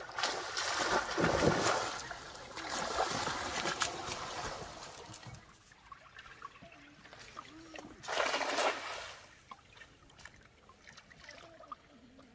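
Water splashing and streaming off a wet cast net as it is hauled up out of the pond for about five seconds. After a quieter pause, a single splash about eight seconds in as the thrown net lands on the water.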